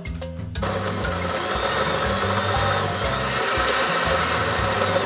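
Countertop blender with a glass jar switching on about half a second in and running steadily, puréeing raw tomatillos, cilantro, serrano and chicken stock into a green sauce. Background music continues underneath.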